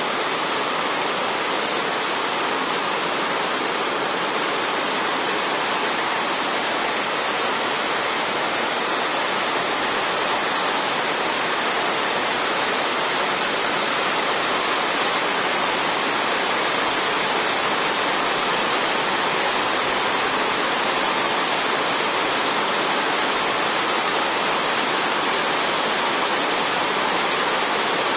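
Rain falling steadily on a corrugated sheet roof and the open tracks, an even, unbroken rush.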